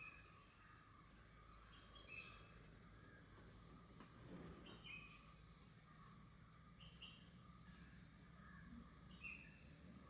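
Faint forest ambience: a steady high insect drone, with a bird's short chirps about every two seconds, five in all.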